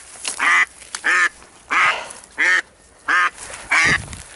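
Live decoy hen duck quacking loudly in a steady series of about six quacks, roughly three every two seconds: the hen calling to draw in a drake.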